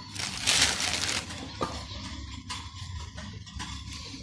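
Clear plastic wrapping rustling and crinkling as it is handled, for about a second, followed by a few faint light clicks and taps.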